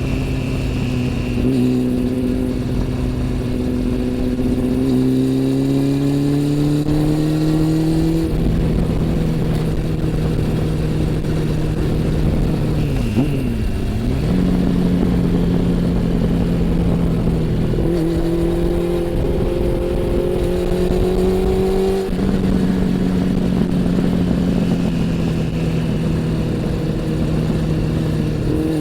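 Honda CB400 Super Four's inline-four engine and exhaust under way, its pitch climbing slowly in gear and shifting several times, with a quick drop and rise in pitch about halfway through.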